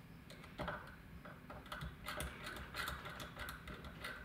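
Elma rotary switch of a ladder stepped attenuator being turned by hand, clicking through its detent positions in a quick, irregular run of small clicks.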